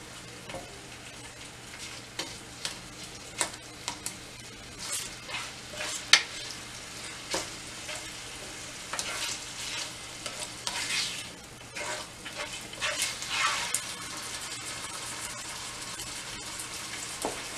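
Ground beef frying in olive oil in a nonstick skillet, sizzling steadily, while a utensil breaks it up with scattered scrapes and taps against the pan. The stirring stops a few seconds before the end, leaving the sizzle alone.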